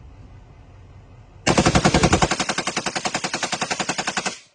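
Belt-fed machine gun firing one long burst of about three seconds, starting about a second and a half in and stopping abruptly, the shots coming in a rapid even rattle.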